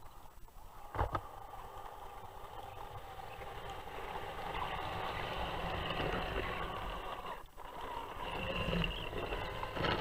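Radio-controlled model tank driving and pushing snow with its plough blade: a steady mechanical whine from its drive that swells and fades, with a sharp click about a second in.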